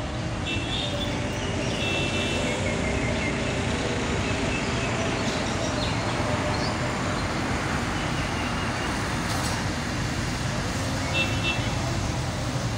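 Steady road traffic noise, with short high vehicle-horn toots about a second in and again near the end.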